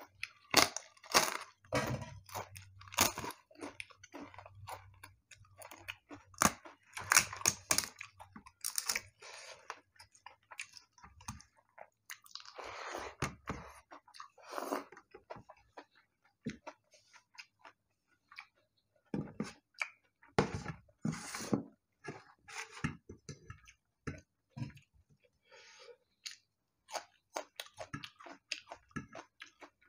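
Close-miked eating: crisp fried papad crunched between the teeth, with sharp crunches coming thick over the first nine seconds and again around twenty seconds in, and softer chewing in between.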